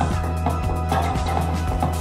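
Dance music with a steady beat over a held, continuous bass.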